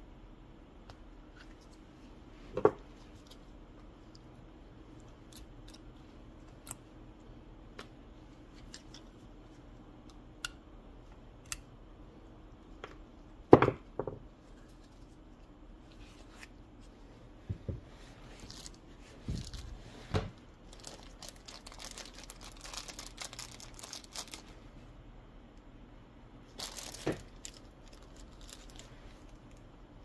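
Old gaskets being peeled and torn off a small engine's cast intake manifold by gloved hands, with scattered clicks and knocks as the metal part is handled. There is a sharp knock near the middle, and a longer stretch of scraping and tearing about two-thirds of the way through.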